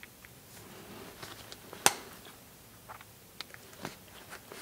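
Scattered small metal clicks and scrapes as needle-nose pliers bend back the crimped tabs on the metal can of a Makita FD02 drill's DC motor, with one sharper click about two seconds in.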